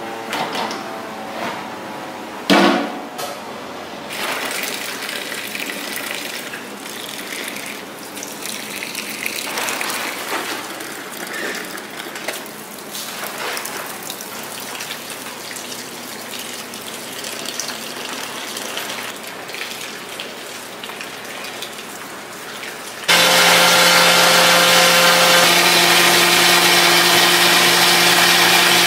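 Water running onto ground soybeans in a stainless-steel soybean grinder, with a loud metal knock of a stainless pot about two and a half seconds in. Near the end a much louder steady rush of soy milk pouring into a stainless pot comes in suddenly, with a steady low hum under it.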